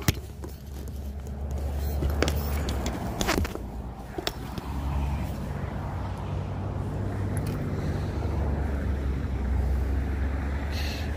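A motor vehicle's engine running steadily, swelling from about a second in, with a short dip near four seconds. A few sharp clicks and knocks sound in the first four seconds.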